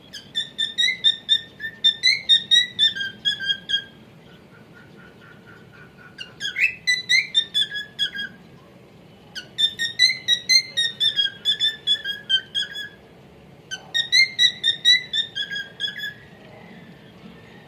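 Male cockatiel singing: four phrases of quick, repeated whistled notes, each a few seconds long, separated by short pauses, with the notes stepping down in pitch near the end of each phrase.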